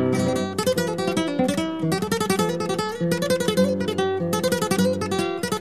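Background music: acoustic guitar playing quick runs of plucked notes.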